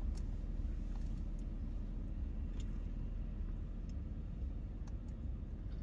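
Steady low rumble of a vehicle's engine idling, heard inside the cab, with a few faint clicks.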